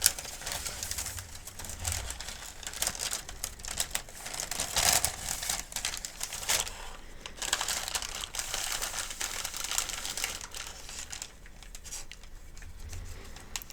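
Paper medication guide crinkling and rustling close to the microphone as it is handled, in a dense, irregular crackle with louder swells about five and six and a half seconds in.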